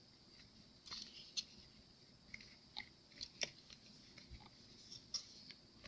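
Soft, scattered clicks and light crackles of a small figure being handled in flocking powder, with a couple of sharper taps.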